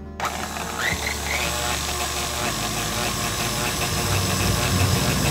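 KitchenAid Professional stand mixer switching on just after the start and running steadily, its wire whisk beating margarine, sugar and egg white, with a light regular ticking over the motor noise.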